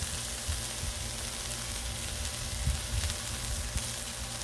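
Diced peppers and onions sizzling on the hot steel top of a Blackstone griddle, a steady frying hiss, with a few soft low thumps.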